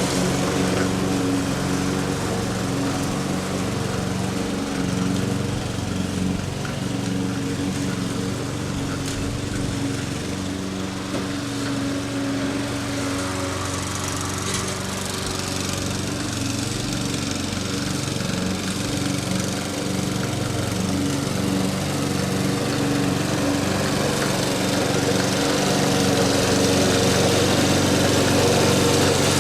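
Lawn mower running steadily while cutting grass, getting a little quieter about a third of the way in and louder again near the end.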